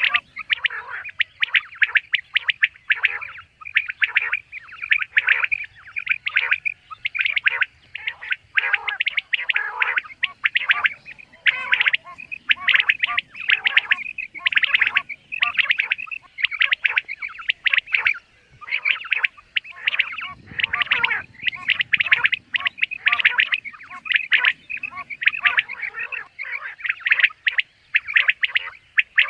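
Common quail calling over and over, short sharp notes following each other rapidly with no real pauses, several calls overlapping at times.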